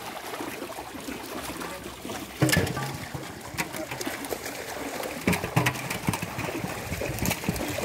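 Pond water splashing and sloshing as fish are handled in shallow water, with sharper, louder splashes about two and a half and five seconds in.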